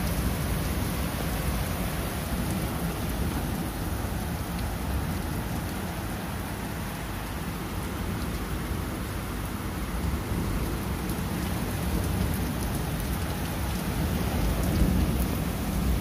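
Steady rain falling, an even hiss of drops, with a continuous low rumble beneath it that swells slightly near the end.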